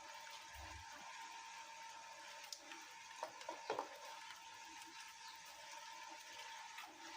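Faint steady hiss and hum with a few soft clicks and knocks around the middle.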